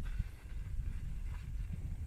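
Low, uneven rumble of wind on the microphone, with a few faint ticks and rustles of tent fabric as the door flaps are handled.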